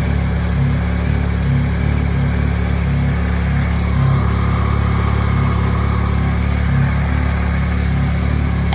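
Yamaha MT-09 SP's three-cylinder engine idling steadily, running to power newly installed heated grips.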